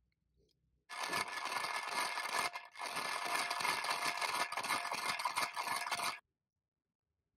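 Rusty mechanism of a mid-century hand-crank pencil sharpener scraping and grinding as it is turned, dense and gritty. It starts about a second in, breaks briefly about two and a half seconds in, and stops abruptly near the end.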